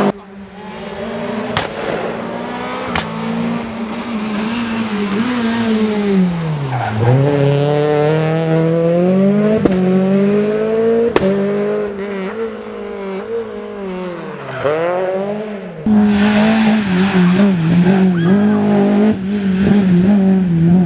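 Renault Clio Williams rally car's four-cylinder engine at high revs, flat out. Its pitch sags deeply twice as the car slows for corners and climbs again under acceleration, with a few sharp cracks along the way. About three-quarters through, the sound jumps abruptly to another loud pass.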